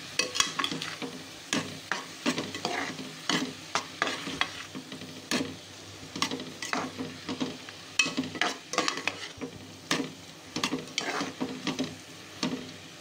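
A ladle scraping and knocking against the inside of an aluminium pressure cooker as chopped onion, tomato and ginger-garlic paste are stirred and sautéed in hot oil, over a steady sizzle. The strokes come irregularly, one or two a second, and thin out near the end.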